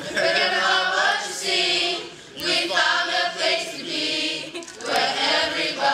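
A group of young voices singing together as a choir, in phrases with brief pauses about two and five seconds in.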